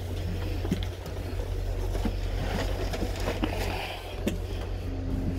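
Steady low rumble of a moving passenger train, heard from inside the coach, with a few sharp clicks and knocks scattered through it.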